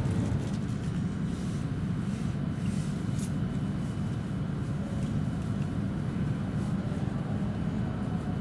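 Steady low rumble of a W7 series Shinkansen running, heard from inside the passenger cabin.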